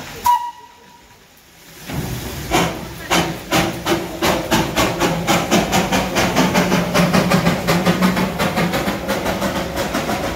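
Darjeeling Himalayan Railway B-class saddle-tank steam locomotive pulling away, its exhaust chuffs starting slowly and quickening to about four a second. Steam hisses from around the cylinders, and the chuffs begin after a short sharp sound and a brief quiet moment.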